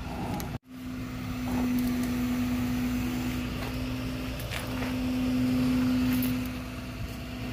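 Flatbed tow truck's winch running with a steady hum as it pulls the car up the bed. The hum breaks briefly near the middle and grows a little louder shortly after.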